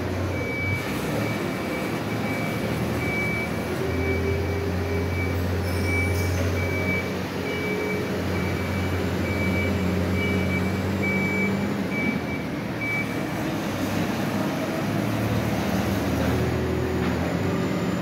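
Telescopic handler's diesel engine running steadily, with a backup alarm beeping about once a second that stops about 13 seconds in.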